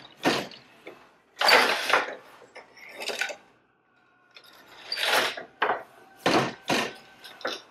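Wooden loom clattering: a series of sharp wooden knocks and rattles, some eight in all with short pauses between, as shafts, shuttle and beater are worked during double weaving.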